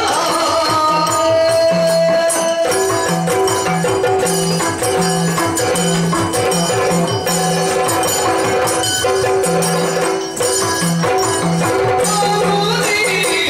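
Yakshagana ensemble music: the maddale and chende drums play a brisk rhythm, with the Bhagavata's hand cymbals clashing over a steady drone.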